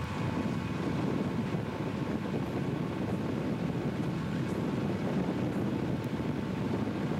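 Steady rumble of a moving vehicle pacing a Southern Pacific diesel locomotive: road and wind noise, with the locomotive's running gear and engine mixed in.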